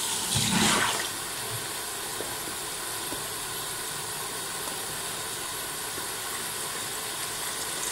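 Water running from a kitchen tap into a steel sink, a steady even hiss, while a plastic container is rinsed under it; a brief louder handling noise about half a second in.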